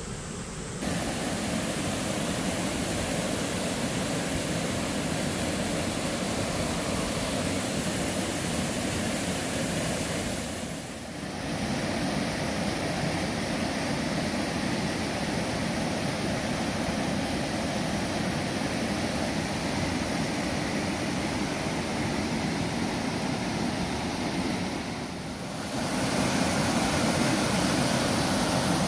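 Mountain valley stream water rushing and splashing steadily, with two brief dips in level about 11 and 25 seconds in, the last stretch slightly louder.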